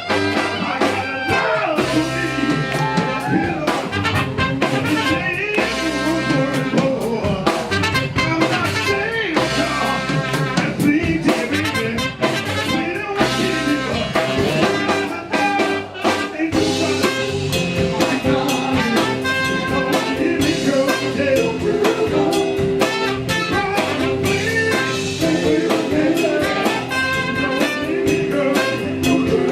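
A live soul and R&B band playing, drum kit and a horn section to the fore.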